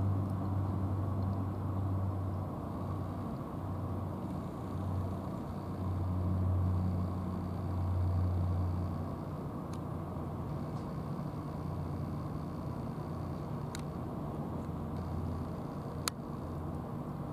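A low, steady engine hum that swells and fades every few seconds, with a few faint clicks and one sharper click near the end.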